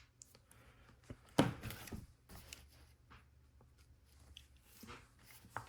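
Handling of LEGO Technic plastic pieces: scattered faint clicks and rustles, the loudest about a second and a half in.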